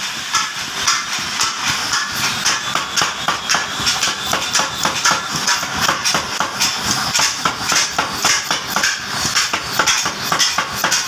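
20 kg belt-driven mechanical power hammer striking a red-hot steel trowel blank held in tongs, in a rapid, evenly spaced run of blows.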